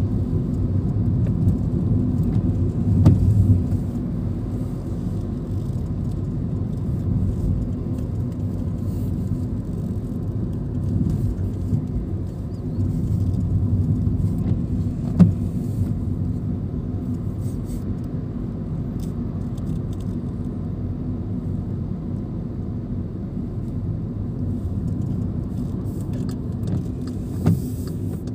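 Car driving, heard from inside the cabin: a steady low rumble of engine and tyres on the road, with a few brief knocks, the sharpest about halfway through.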